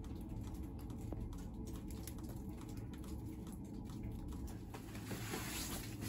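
Light, irregular pattering of falling wet snow over a steady low rumble, with a brief hiss about five seconds in.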